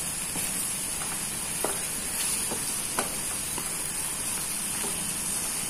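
Sliced onions, tomatoes and green chillies sizzling steadily in a frying pan on a low flame while a wooden spatula stirs them, with scattered small clicks through the hiss.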